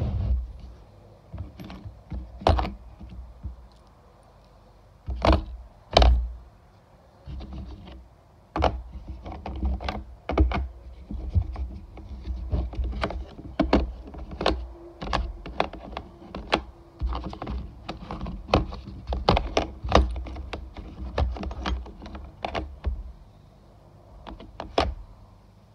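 Steel parts of a bearing puller kit clicking and knocking against each other and against their moulded plastic case as they are handled: irregular sharp clicks, at times several a second, with a few louder knocks, over a low rumble.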